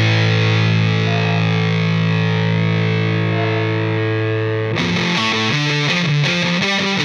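Background rock music with distorted electric guitar: a held chord, then a quick rhythmic run of notes starting about two-thirds of the way through.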